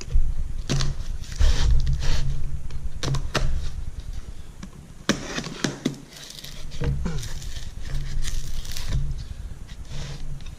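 A tailstock being unpacked from its box: packaging rustles, with irregular sharp clicks and knocks as the parts are handled, over a low steady hum.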